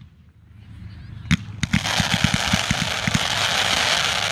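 Aerial fireworks bursting. After a quiet first second comes a sharp bang, then a quick run of dull thumps, then a dense crackling hiss from glittering gold crackle stars.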